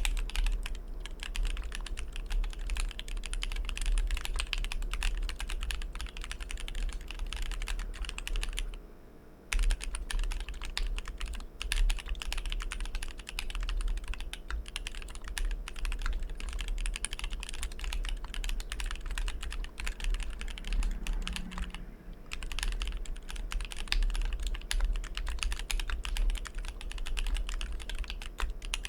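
Steady, continuous typing on an ai03 Polaris custom mechanical keyboard with a brass plate, SP-Star Polaris White switches and GMK Oblivion keycaps. It pauses for about a second a little after eight seconds in, then resumes.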